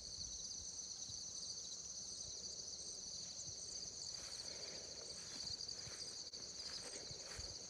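Field insects trilling in a steady, high, two-pitched chorus, with a faint regular chirp pulsing above it. A few soft footsteps in the grass come near the end.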